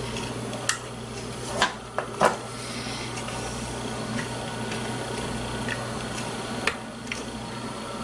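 Light clicks and taps of fingers and a plastic spudger working at an opened Garmin GPS unit's plastic case and ribbon-cable connector latch. There are several in the first couple of seconds, the loudest about two seconds in, and one more later on, over a steady low hum.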